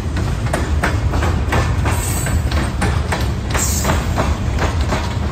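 Freight train of covered hopper cars rolling past close by: a steady low rumble with frequent sharp clanks and knocks from the wheels and couplers.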